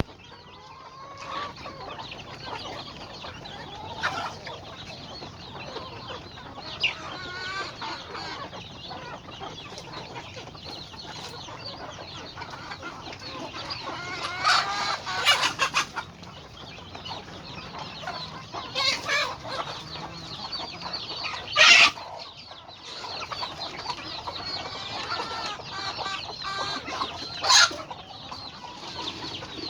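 Chickens clucking continuously, with a few louder calls standing out, the loudest about two-thirds of the way through.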